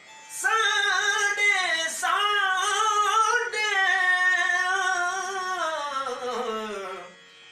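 A young man singing a Hindustani classical vocal phrase in a high voice, with many quick ornamental bends in pitch. The phrase ends in a long downward glide that fades out near the end.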